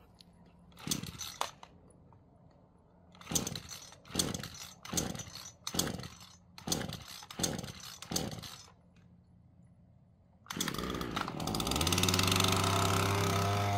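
Small engine being started with a recoil pull cord: one pull, then seven quick pulls in a row. It catches about ten seconds in and keeps running, speeding up a little near the end.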